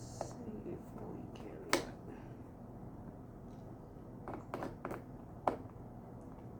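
Sharp clicks and taps of small parts being handled and fitted while a fresh air box and its control cable are put together, with a steady low hum underneath. The loudest click comes about two seconds in, and a quick run of three follows near the end.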